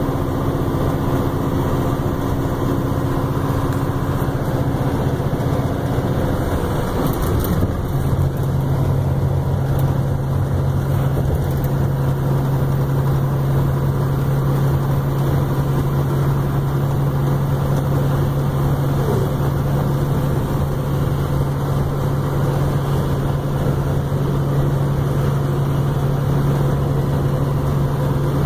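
Steady engine drone and road noise heard from inside a truck cab cruising down a highway. A low hum in the drone changes pitch about seven seconds in, then holds steady.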